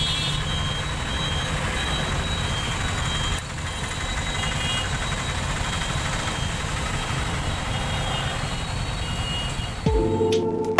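Auto-rickshaw engine running with a steady low throb, heard from inside the cabin in road traffic, with short high beeps now and then. Music starts near the end.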